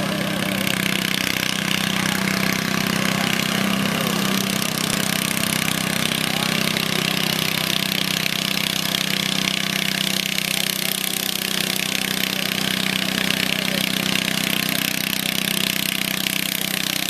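Garden tractor engine running steadily with a constant, pitched engine note.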